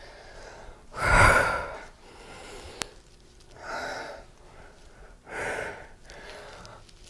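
A woman breathing hard from exertion while exercising: three loud breaths about two seconds apart, the first and loudest about a second in. A short sharp click comes just before the three-second mark.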